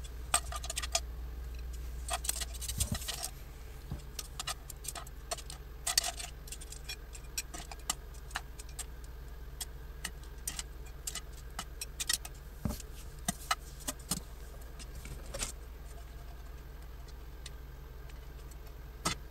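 Metal utensils clinking against a frying pan and plate, with clam shells knocking together, as spaghettini with clams is plated: many short sharp clicks at irregular intervals. A steady low hum lies underneath.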